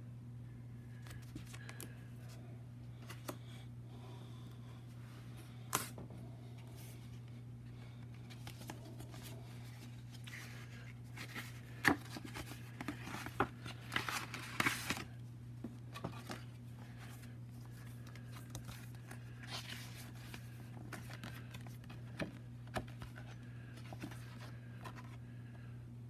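Stiff printed paper cards being handled and flipped over: scattered rustles, taps and flaps, busiest about halfway through. A steady low hum runs underneath.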